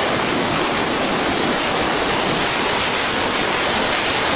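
Tornado wind rushing steadily: a dense, even noise with no let-up and no gusts or impacts.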